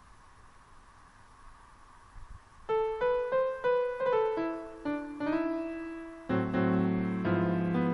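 Background piano music comes in about two and a half seconds in: a line of single notes, then fuller chords near the end. Before it there is only a faint steady hiss.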